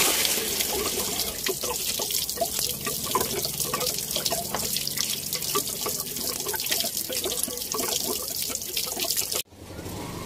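Radiator water gushing from a disconnected radiator hose and splashing onto the wet ground under the vehicle, a steady rush with scattered drips and splatters. It stops abruptly near the end.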